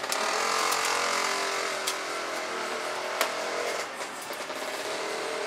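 A motor vehicle engine running, loudest in the first second and fading out about four seconds in, with two sharp clicks in between.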